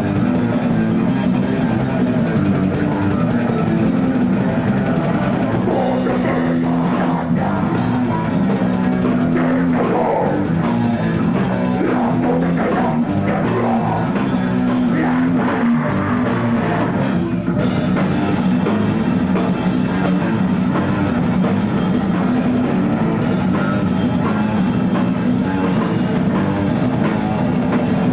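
A live rock band playing loudly and without a break: distorted electric guitars over a pounding drum kit, in a heavy, metal-tinged style. It sounds dull, with no treble above the mids.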